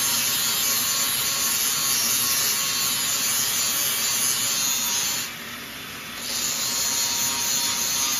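Handheld power tool cutting into a car's steel frame in the rear wheel well, notching the frame. A steady, harsh cutting noise that eases off for about a second partway through, then picks up again.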